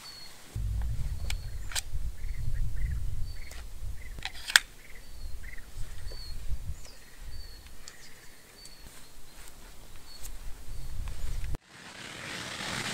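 Wild birds chirping, short high notes repeating about once a second, over a low rumble and a few sharp clicks. Near the end the sound cuts suddenly to a steady hiss.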